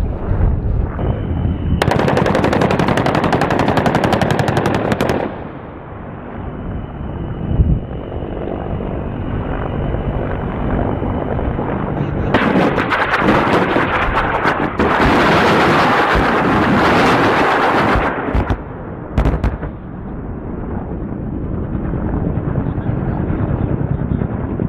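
Attack helicopter's rotor thudding steadily overhead while rapid automatic gunfire rips out in two long bursts: one of a few seconds, then a longer one of about six seconds with a brief break, followed by a couple of single bangs.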